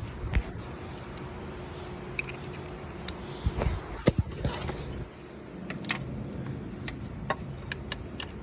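Hand tools clicking and clinking as a triple square socket and wrench are handled, with scattered short metallic clicks and a few sharper knocks around three to four seconds in.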